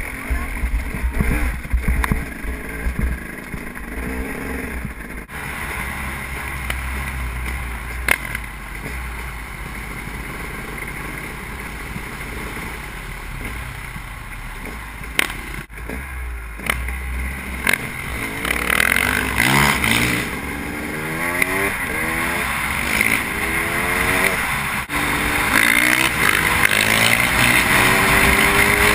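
KTM enduro motorcycle engine running, heard from the rider's helmet: first a low, steady run with a few sharp knocks, then from about two-thirds in it revs up again and again as the bike accelerates through the gears. Wind noise on the microphone grows with speed.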